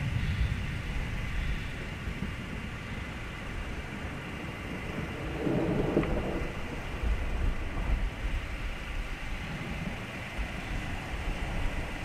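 Thunder rumbling over a steady background hiss, with a louder swell of rumble about halfway through.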